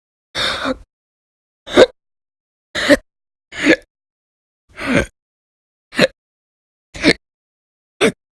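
A woman hiccuping loudly and repeatedly, eight sharp hiccups about a second apart, the first a little longer than the rest. They are part of a bout of persistent hiccups lasting hours.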